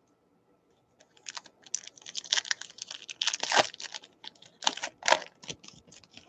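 Quick, irregular crackling and clicking of a baseball card pack being opened and its cards handled: the foil wrapper crinkling and tearing, then the cards shuffled. It starts about a second in.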